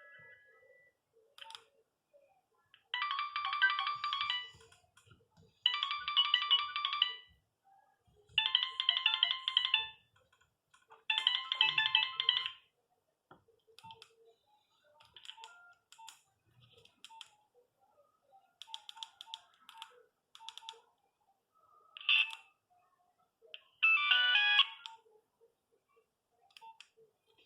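Nokia 3510 mobile phone playing a ringtone through its small speaker: a short phrase of high notes repeated four times about 2.7 s apart, then quieter scattered notes with two louder short phrases near the end.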